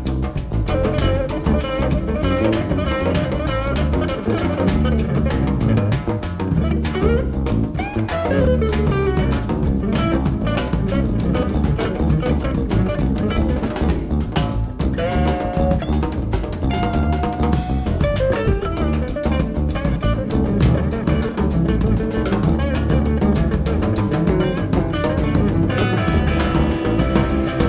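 Jazz-rock band playing, with guitar over drum kit and bass in a busy groove and a few sliding notes.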